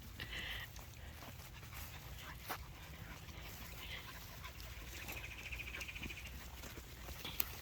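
Faint sounds of Kerry Blue Terrier puppies at play: a short high-pitched call near the start and a rapid high trill about five seconds in, over a steady low rumble, with one sharp click near the end.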